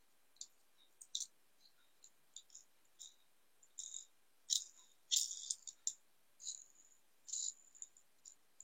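Faint, irregular light clicks and small rattles from a Hot Wheels die-cast car's replacement plastic wheels and axle being worked and pressed on by hand.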